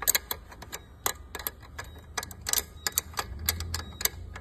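Irregular sharp clicks and taps from hands and tools working on a dirt bike's rear axle and chain adjusters, some two dozen in a few seconds.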